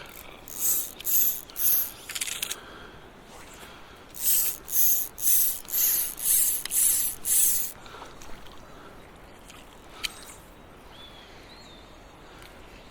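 Fly reel's click-pawl ratcheting in short bursts, as in line being pulled off the reel in arm-length strips: four quick bursts, a pause, then seven more at an even pace.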